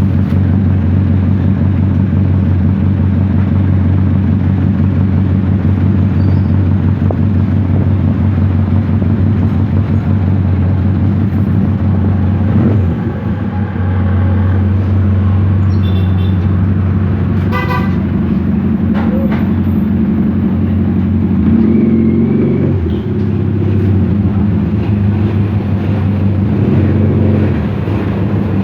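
Bajaj CT100 single-cylinder four-stroke motorcycle engine running steadily at idle after being overhauled and reassembled. A short high-pitched toot comes about two-thirds of the way through.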